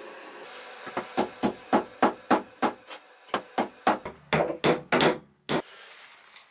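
A claw hammer striking a wooden wedge into the eye of a new hammer handle to lock on a polished ball-peen hammer head. It is a run of about sixteen sharp knocks, around three a second, stopping about five and a half seconds in.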